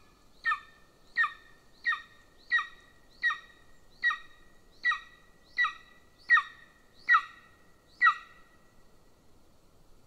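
Golden eagle calling: a series of about eleven short, sharp yelping notes, roughly one every 0.7 s, getting louder toward the end and stopping about eight seconds in.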